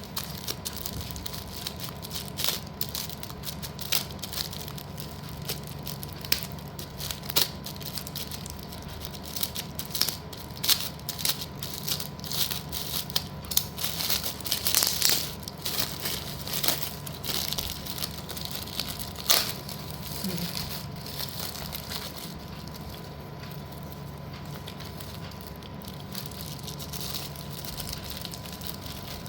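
Small pieces of slate clicking and rattling against one another as they are handled and sorted, with some crinkling of packaging. The clicks come thick and fast for about the first twenty seconds, then thin out.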